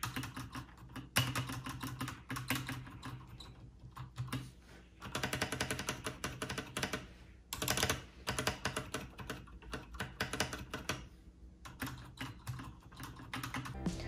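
Keys being pressed on a Keychron K2 mechanical keyboard with Gateron Brown switches: scattered single clacks with short runs of quick keystrokes.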